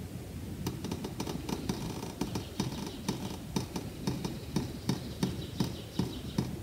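Water dripping from the bottom of a small tube packed with organic-matter soil into a cup below, as the poured water drains through the soil column. It is a rapid, even run of small drips, about three a second, that starts about a second in.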